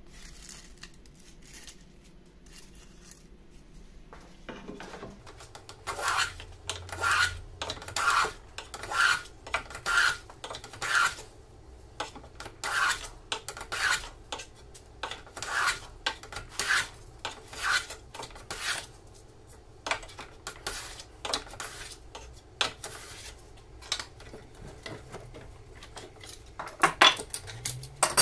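Hand plane taking curled shavings off a clamped wooden strip in repeated push strokes, each a short rasping swish, about one a second once it gets going. A few sharp clattering knocks near the end.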